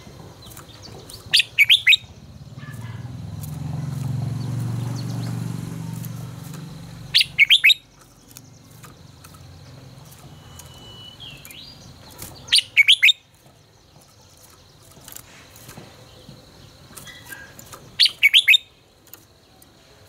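Red-whiskered bulbul singing short, loud phrases of a few quick, sharp notes, four times about five seconds apart. Between the first and second phrases a low rumble swells and fades.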